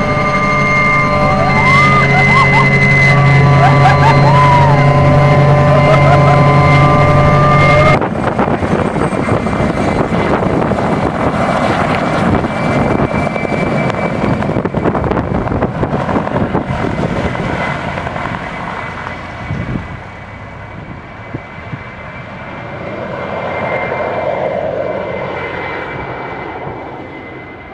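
Mi-2 helicopter heard from inside its cabin, its twin turboshaft engines and rotor running with a steady whine over a low drone. About eight seconds in the sound changes abruptly to the same helicopter heard from the ground as it lifts off and flies away, its rotor noise fading. It grows louder again as it passes overhead near the end, then fades.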